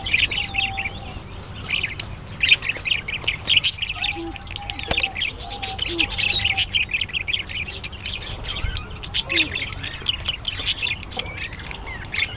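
Lovebirds chirping rapidly and without pause in high, sharp notes, with a few short, lower calls mixed in over a steady low hum.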